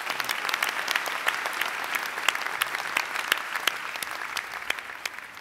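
An audience applauding, many hands clapping at once, dying away near the end.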